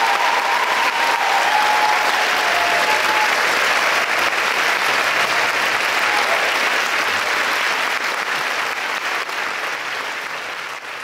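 Audience applauding steadily in a concert hall, the clapping fading out over the last few seconds.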